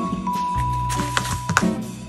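Background music: a long held high note over steady bass notes, with a few light taps.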